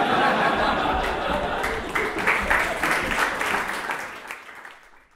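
Live audience applauding, fading away about four to five seconds in.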